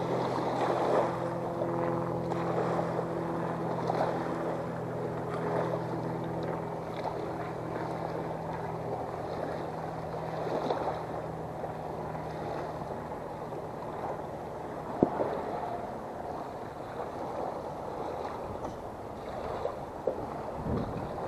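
Lake water lapping against a beached fishing boat and the boat ramp, with wind on the microphone. A steady engine hum runs underneath and fades away by the middle, and a single sharp knock sounds about two-thirds of the way through.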